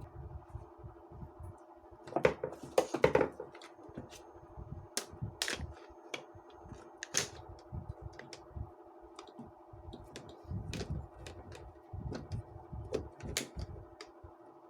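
Irregular small clicks and knocks of parts and tools being handled during a ceiling fan repair, with a louder clatter about two to three seconds in, over a steady hum.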